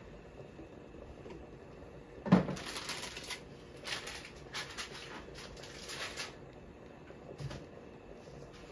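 Kitchen handling noises: a sharp knock about two seconds in, then a few seconds of irregular rustling and scraping, and a lighter knock near the end.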